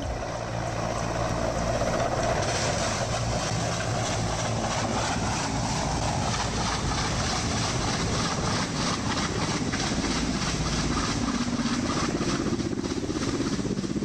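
Military helicopter's rotor and engine running steadily as it comes in to land, with a fast, even beat of the rotor blades.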